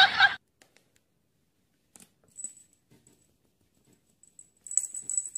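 Small bell on a cat's collar jingling as the cat moves: a few light tinkles about two and a half seconds in, then a longer run of jingling near the end.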